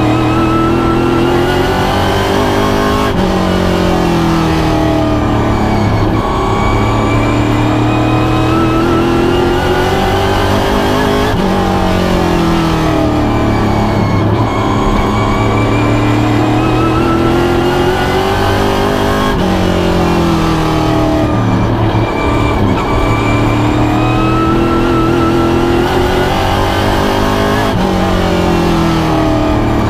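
Pro stock race car's V8 engine at racing speed, heard from inside the cockpit. Its pitch climbs steadily and then drops sharply about every eight seconds as the driver lifts off the throttle for the turns.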